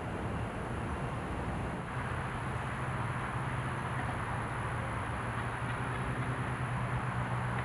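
Steady mechanical hum of a running motor or engine over outdoor background noise. A low drone comes in about two seconds in and holds steady.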